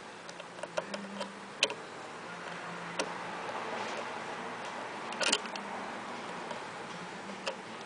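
Small metal clicks and taps as a roller presser foot is fitted by hand onto an industrial sewing machine's presser bar: a few scattered clicks, a sharper cluster a little after five seconds in, over a faint steady hum.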